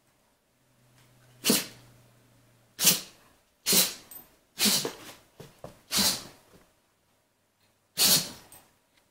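Dog barking in play: about six short, sharp barks at uneven intervals, each ending abruptly.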